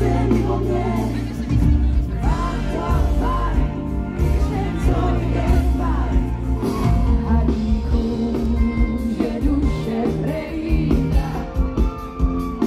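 Live pop music with a singer over a strong bass line, as heard in a festival crowd at an outdoor concert.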